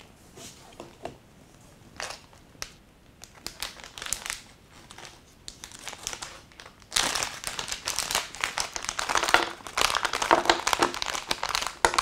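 Plastic packaging bags crinkling and rustling as they are opened and handled: a few scattered crackles at first, then dense, louder crinkling from about seven seconds in.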